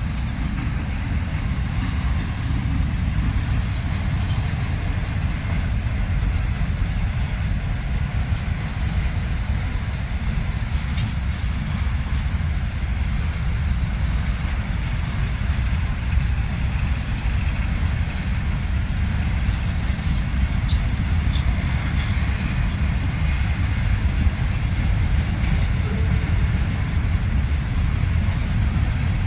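Freight cars of a long freight train rolling slowly over the crossing: a steady low rumble of wheels on rail, with a few faint clicks.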